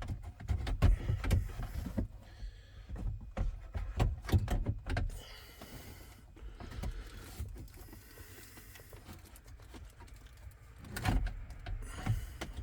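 Plastic clicks, knocks and rubbing as a replacement car radio is slid back into its dashboard opening, with a quieter stretch in the middle and a few more knocks near the end.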